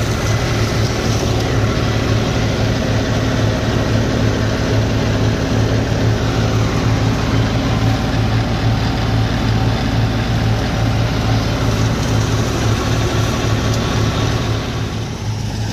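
John Deere tractor's diesel engine running steadily at a constant speed, with a slight dip in level near the end.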